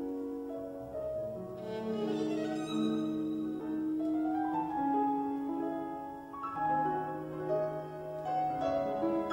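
Instrumental background music: a slow melody of long held notes on bowed strings over piano chords.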